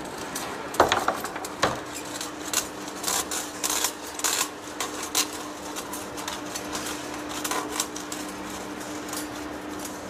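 Irregular metallic clinks and knocks over a steady machine hum, the loudest knock about a second in.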